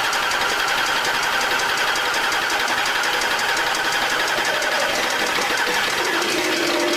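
Audi A8's EA837 V6 engine idling just after starting, with a fast, even pulse and its pitch slowly settling lower. Near the end a lower tone comes in and falls away.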